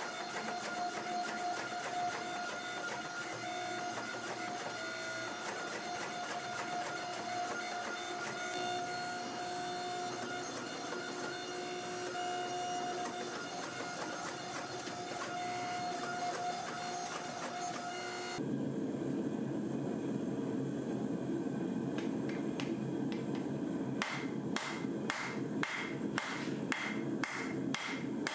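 Hydraulic forging press running with a steady whine while it squeezes a glowing steel billet. About 18 seconds in the sound cuts to a lower rushing noise, and from about 24 seconds hammer blows strike hot steel on an anvil, two or three a second.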